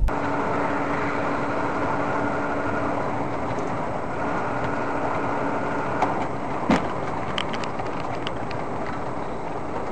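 Car engine and road noise heard from inside the vehicle on a dashcam. There is a steady hum that stops about six seconds in, then a few light clicks and one sharp knock.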